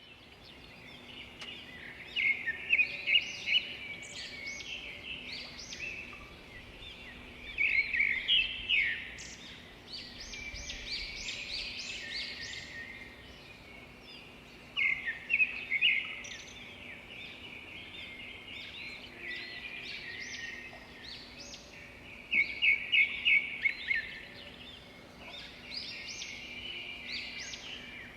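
Songbirds singing a morning chorus: overlapping high chirps and twitters, with one louder bird giving a quick run of rapid notes about every seven seconds.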